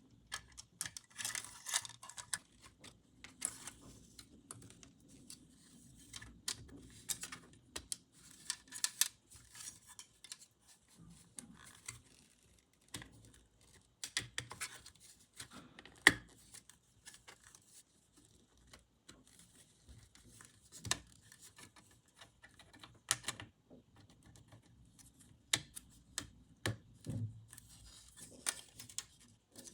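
Small plastic toy parts and packaging being handled: irregular clicks and taps, with a few short crinkling stretches. One sharp click about halfway through is the loudest.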